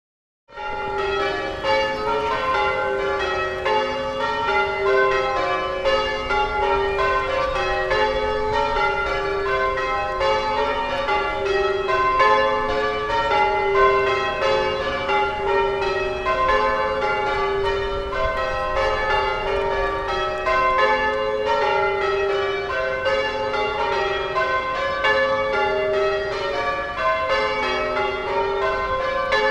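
A peal of church tower bells rung in change ringing: several bells of different pitches strike one after another in quick, continuous succession, each ringing on under the next. The peal starts suddenly about half a second in.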